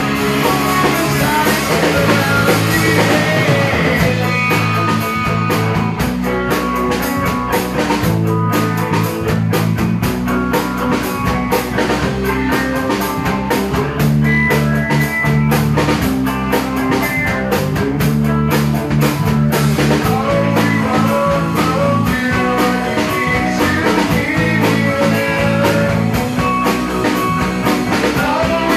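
Live rock band playing: electric guitars over a drum kit, with steady drum hits throughout.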